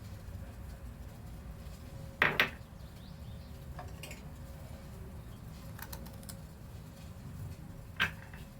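Kitchen utensils knocking and clinking on a hard surface: a sharp knock about two seconds in and another near the end, with a few faint taps between, over a low steady hum.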